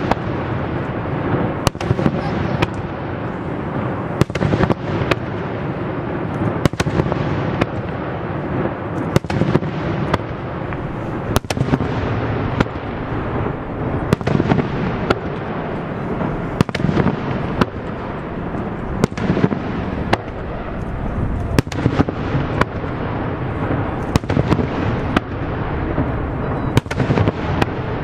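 Fireworks display: many shells bursting in quick, irregular succession, sharp bangs and cracks over a continuous low rumble of overlapping bursts.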